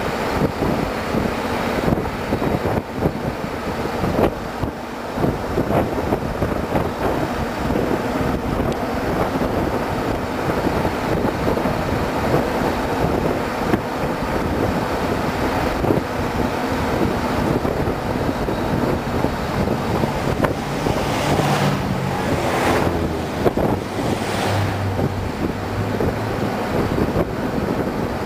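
A car driving along a street: steady engine and road noise with wind buffeting the microphone, and a louder rushing swell about twenty seconds in.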